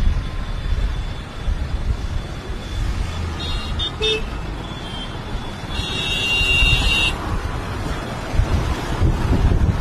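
Road traffic noise with a steady low rumble, broken by a couple of short high horn toots and then a longer horn blast of about a second.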